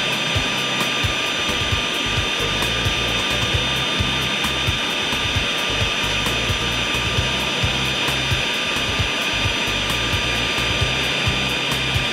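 WRAVOR type 500-S circular saw running steadily, a loud whine with several high tones held over a rushing noise.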